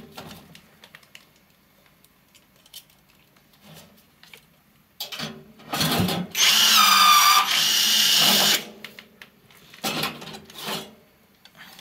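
Cordless drill boring through thin computer-case sheet steel for about two seconds, its motor whine shifting in pitch as the bit cuts. Two shorter bursts of power-tool noise follow near the end.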